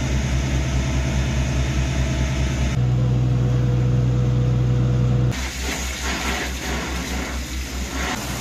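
Fire truck's diesel engine running steadily with a low, even throb. It is fainter after about five seconds, with scattered knocks and hiss over it.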